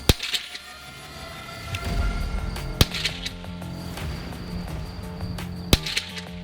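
Three single rifle shots, about three seconds apart, each a sharp crack with a brief tail. Background music plays underneath.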